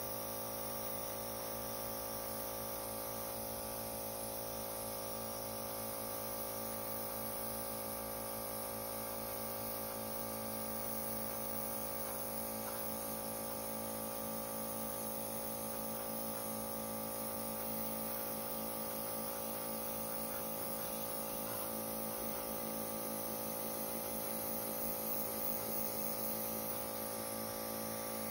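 Airbrush compressor running with a steady hum, under a constant hiss of air from the airbrush.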